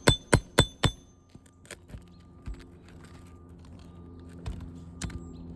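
Hammer striking a steel nail puller to drive it under a roofing nail in an asphalt shingle: four quick, ringing metal-on-metal blows in the first second, followed by a few faint taps and clicks.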